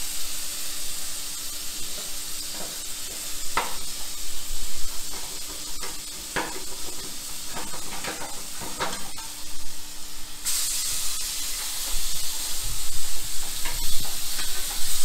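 Rohu fish pieces shallow-frying in coconut oil in a covered pan on a low flame: a steady sizzle with scattered sharp pops and crackles, the hiss getting louder and brighter about ten seconds in. The pops are steam from the lid dropping into the hot oil and bursting.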